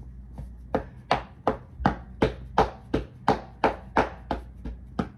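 Steady rhythmic percussive tapping on the body during self-massage, about three sharp strikes a second, working out a sore spot.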